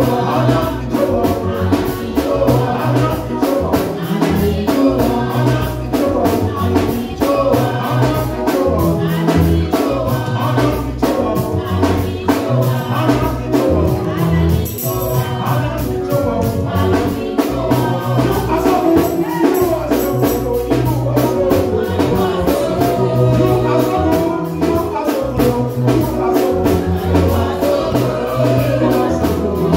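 Gospel praise music with group singing over a moving bass line and fast, steady percussion.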